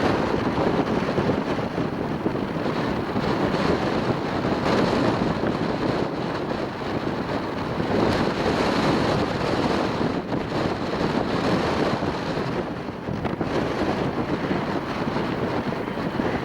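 Strong gusting wind buffeting the microphone: a dense rushing noise that rises and falls in waves.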